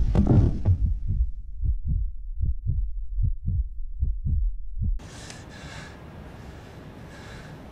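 Heartbeat sound effect: slow, low double thuds, roughly one beat a second, that cut off suddenly about five seconds in. A man's heavy breathing follows, in short breaths over a faint hiss, as he wakes from a nightmare.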